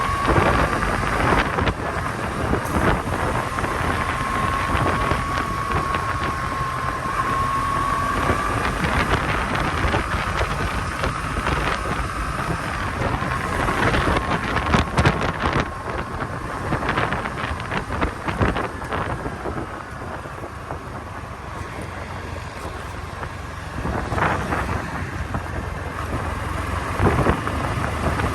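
Kawasaki W800's air-cooled parallel-twin engine and exhaust while it is ridden on the road, with wind buffeting the microphone. The engine gets quieter for a few seconds about two-thirds of the way through, then rises again as it picks up.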